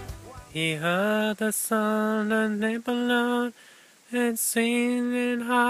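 A voice singing or chanting long held notes, each one sliding up into a steady pitch, with short breaks between them and a longer pause about three and a half seconds in.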